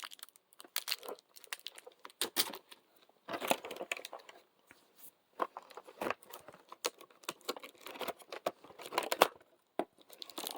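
Packaging crinkling and tearing in irregular bursts, with small clicks, as a small mochi squishy toy is unwrapped by hand.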